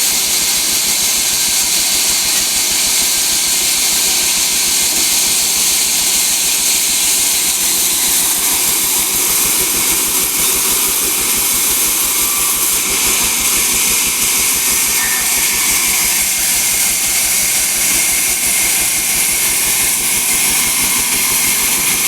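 Sawmill saw machine running steadily: a loud, even noise with a strong high hiss that does not let up.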